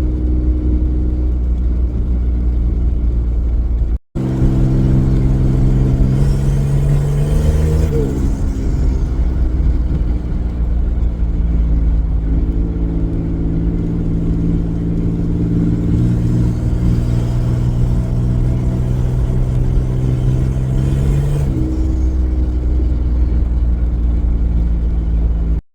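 Turbocharged V6 Commodore engine running while driving, its exhaust venting straight out the dump pipe. The engine note holds steady pitches that step up and down a few times with throttle and gear changes, and cuts out briefly about four seconds in.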